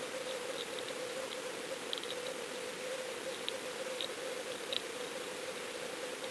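Underwater sound picked up by a GoFish Cam in its waterproof housing: a steady hiss with a steady hum, and scattered faint ticks and clicks at irregular moments.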